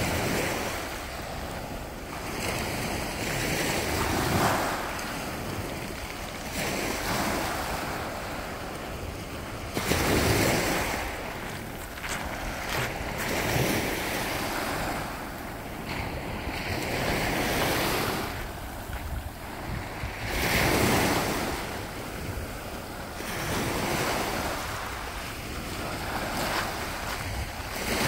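Small Baltic Sea waves breaking and washing up a pebbly sand beach, one swelling wash every three to four seconds over a steady surf hiss.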